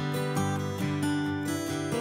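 Background music led by a strummed acoustic guitar, with notes changing every fraction of a second.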